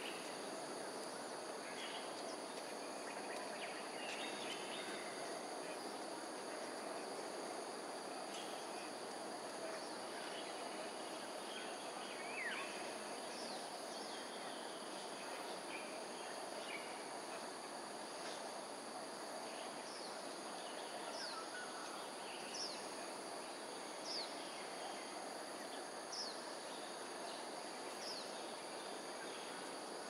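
Steady outdoor ambience: an even background hiss with insects droning at a few constant high pitches. From about halfway through, a short falling high chirp repeats roughly every one and a half to two seconds.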